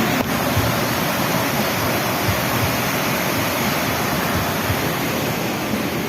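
Waterfall: falling water rushing in a steady, even noise.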